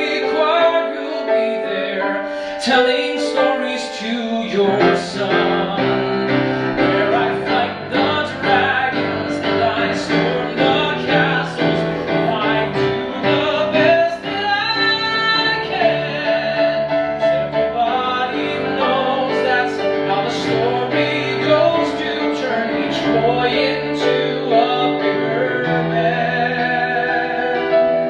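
A man singing a musical-theatre ballad into a microphone with piano accompaniment, amplified through a hall's sound system.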